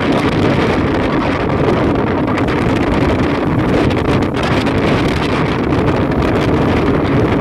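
Wind buffeting the microphone: a loud, steady, rumbling noise with no break.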